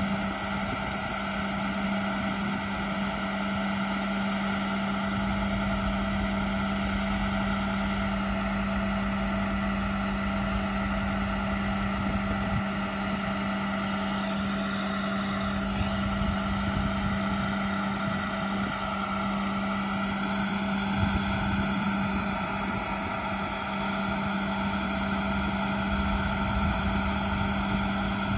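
The diesel engine of an International 7400 crane truck running steadily at a constant speed, with a steady low hum, while the Elliott sign crane's boom is set up on its outriggers.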